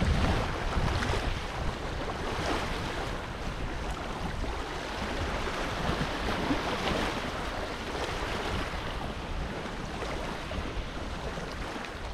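Wind buffeting the microphone with a low rumble, over a steady rush of small waves on the water.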